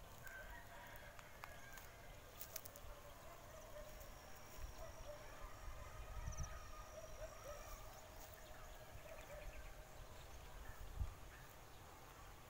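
Faint open-air rural ambience: distant bird and animal calls over a low rumble of wind on the microphone. A thin high steady tone comes in about four seconds in and stops near eight seconds.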